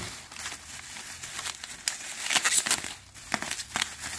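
Crumpled newspaper packing rustling and crinkling in irregular bursts as hands dig through a cardboard box, with a clear plastic bag crackling as a wrapped item is lifted out. The rustling is busiest about two and a half seconds in.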